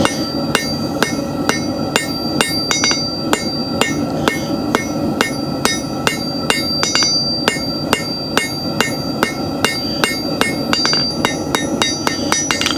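Hand hammer striking a hot steel bar on an anvil, about two blows a second, each with a bright ringing anvil tone and some with a quick rebound tap, drawing out the square taper of a hand-forged nail. A steady roar from the running propane forge lies underneath.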